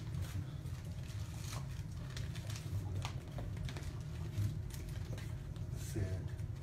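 A puppy's claws clicking and pattering on a hard floor as it plays, with scattered light taps from toys and handling over a steady low room hum. A short pitched sound comes near the end.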